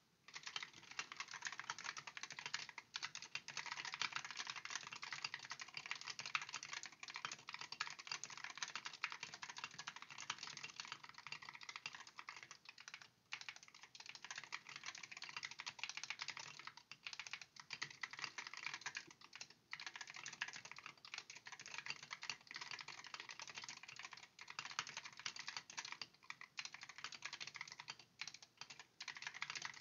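Fast, continuous typing on a stock, unmodified keyboard, many keystrokes a second with a few brief pauses.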